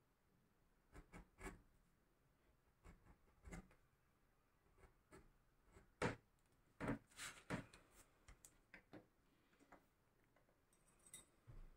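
Faint, irregular scraping and tapping of a small metal hand tool working the edge of a leather strap, with the loudest strokes in a cluster about six to eight seconds in.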